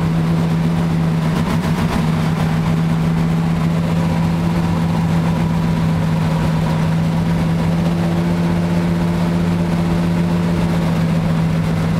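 Car engine idling steadily, heard from inside the cabin.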